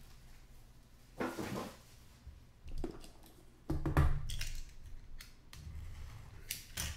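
A sealed cardboard trading-card box being handled: a sliding rustle, then knocks as it is turned over and set down, followed by short scratching clicks as a small cutter slits the seal tape.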